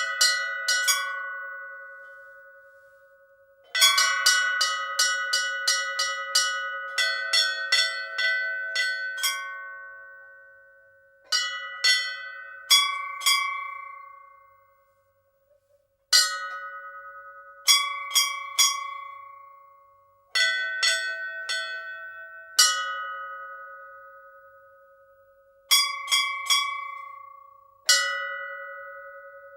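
Hindu temple bell rung in quick flurries of strikes. Each flurry leaves a long ring that dies away, with the same steady hum and bright overtones each time, and a brief silent gap about halfway through.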